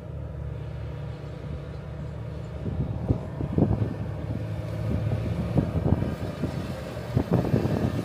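Wind buffeting the microphone in irregular gusts, harder from about three seconds in, over a steady low mechanical rumble.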